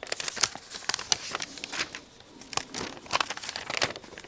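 Paper rustling and crinkling in a run of short, irregular crackles as an instruction booklet is handled and its pages are turned.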